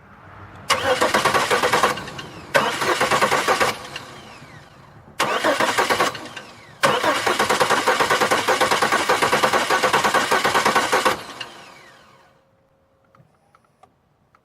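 2002 Chevy Malibu's 3.1-litre V6 cranked on the starter four times, three short tries and then one longer one of about four seconds, spinning evenly without catching. It won't fire because no fuel is reaching the engine even though the fuel pump runs.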